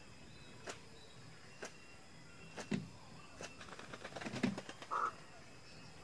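Greater bird-of-paradise giving a few harsh, crow-like calls from about halfway through, the loudest near the end, over a steady high insect drone and faint ticks about once a second.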